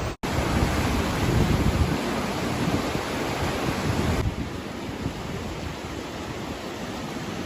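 Storm wind rushing and buffeting the microphone, a dense steady roar. It cuts out for an instant just after the start, and about four seconds in it turns duller and a little quieter.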